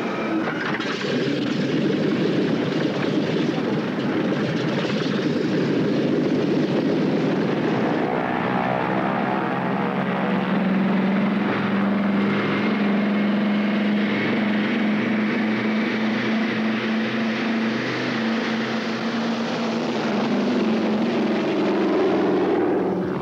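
Douglas DC-3's twin radial piston engines and propellers running at full power on the takeoff roll and lift-off, a loud steady drone with a strong low hum from about nine seconds in.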